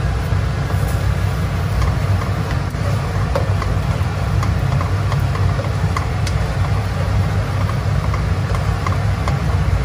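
Spatula stirring a thick egg-yolk sauce in a ceramic-coated wok, with faint scrapes and light clicks, over a steady low hum.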